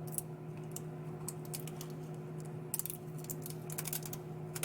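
Scattered small clicks and crackles, thickest about three seconds in, from Kapton tape being peeled off the tablet's internal parts. A steady low hum runs underneath.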